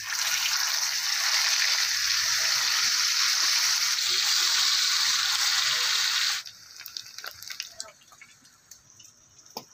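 Masala-coated fish steaks sizzling in hot frying oil, a loud steady hiss that cuts off suddenly after about six seconds. Quieter scattered crackles and a few clicks follow.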